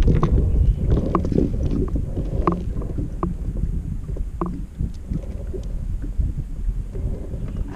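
Wind rumbling on the microphone, with scattered light clicks and taps as fishing tackle and a caught fish are handled. The clicks come more often in the first half.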